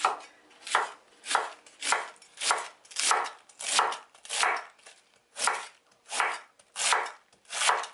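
Chef's knife slicing a head of red cabbage into thin shreds on a wooden cutting board: a dozen or so separate cuts in a steady rhythm of about three every two seconds.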